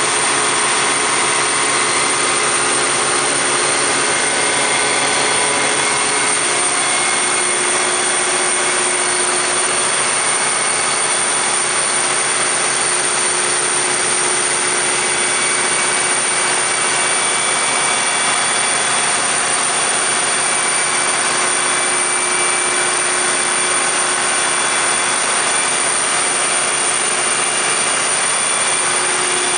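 Cummins QSK60-G7 V16 diesel engine of a 2000 kW generator set running at a steady speed, with a constant high whine over the engine noise.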